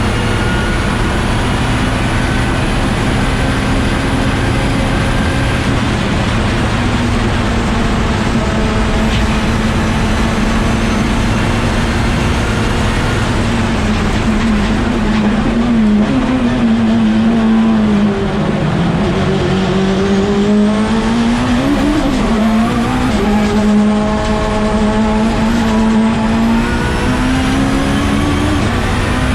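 Time-attack Mitsubishi Lancer Evolution race car's engine running hard on track, its note holding steady for long stretches, then dropping and climbing several times about halfway through as it brakes and accelerates.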